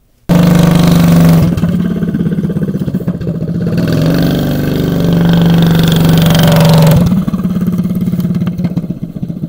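A minibike's small engine starts running loudly and abruptly, holding a steady note. It gets quieter after about seven seconds as the bike rides away.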